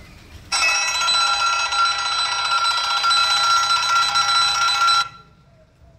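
Railway level-crossing warning bell ringing continuously and loudly, starting about half a second in and cutting off abruptly about four and a half seconds later.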